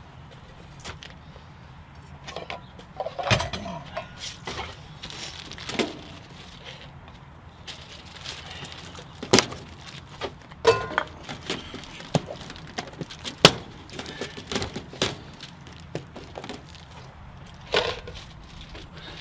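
A grill cooking ground beef in cast-iron skillets: scattered sharp pops and clicks, about a dozen, over a low steady hum.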